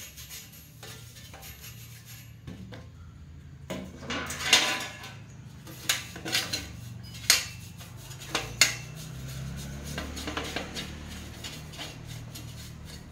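Small metal objects clinking and knocking against each other or a hard surface, with some handling rustle and the loudest knocks about four and a half and eight and a half seconds in, over a low steady hum.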